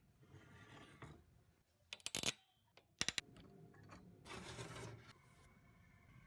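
Computer parts being handled: two quick clusters of sharp clicks about two and three seconds in, then a short rubbing scrape.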